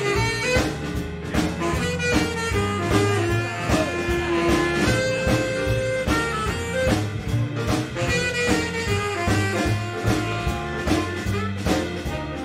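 Small jazz band playing a swing groove: tenor saxophone carrying the melody in held and moving notes over a walking upright bass, piano and a drum kit keeping a steady beat.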